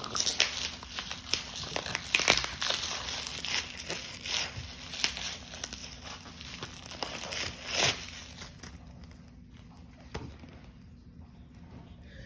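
Plastic bubble wrap crinkling, crackling and tearing as it is pulled off a video game case. The rustling dies down after about eight seconds to a few faint ticks.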